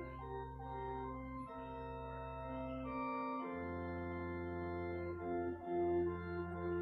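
Church organ played slowly: sustained chords over deep held bass notes, the harmony shifting every second or so.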